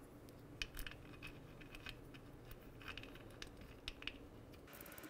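Faint, light metallic clicks and taps, a handful spread out, as a brass neutral switch with its crush ring is handled and threaded by hand into a BMW airhead gearbox case, over a low room hum.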